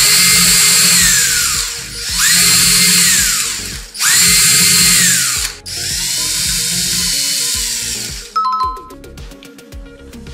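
Power drill boring into a pine board four times in a row. Each run is a rising motor whine that spins up quickly, holds for one to two seconds with the bit cutting, and winds down. A short cluster of clicks and knocks follows near the end.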